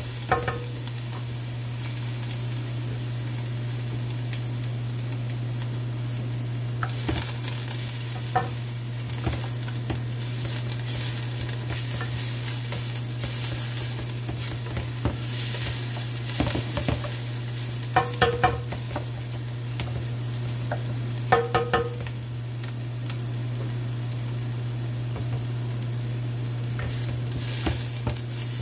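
Chopped onions sizzling gently in oil as they sweat in a stainless steel sauté pan, stirred with a wooden spatula that scrapes across the pan bottom a few times. A steady low hum runs underneath.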